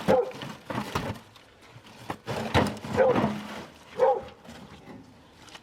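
A dog barking about four times in short single barks, with a few knocks and thuds in between.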